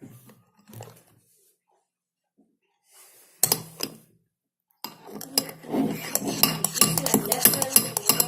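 A spoon clinking and scraping against a bowl. There are a few scattered knocks, then from about five seconds in a fast, steady run of clinks as the slime mixture is stirred.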